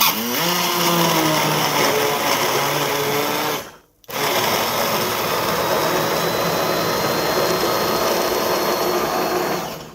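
Electric blender running in two bursts: the motor spins up at the start and runs steadily for about three and a half seconds, cuts out briefly, then starts again and runs until it stops near the end.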